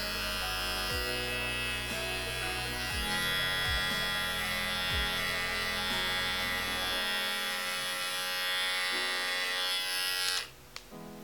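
Cordless electric pet hair clipper buzzing steadily while trimming the fur on a small dog's paw, stopping abruptly near the end.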